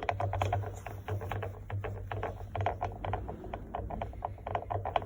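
SO-7B piston air compressor running with a fast, steady knocking, about six knocks a second, over the motor's hum. The knock comes at the piston reversal on both pistons, a sign of wear in the running gear.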